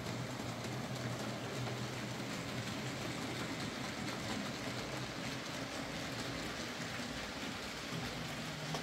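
Hornby J15 OO gauge model locomotive running steadily along the track on its newly fitted replacement motor: a low steady hum under the even running noise of the wheels on the rails.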